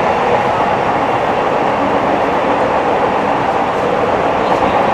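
Nagoya Municipal Subway 3050-series train running between stations, heard from inside the car: a loud, steady rumble of wheels on rail and running gear.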